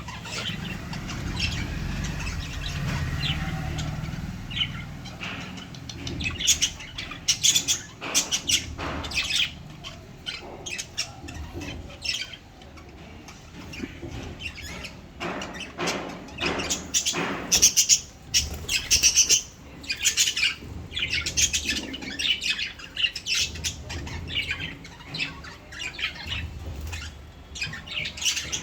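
Lovebirds chirping and squawking, in quick runs of short, shrill, high calls.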